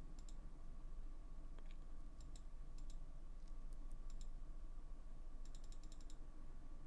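Faint, scattered clicks of a computer mouse and keyboard, with a quick run of clicks near the end, over a low steady hum.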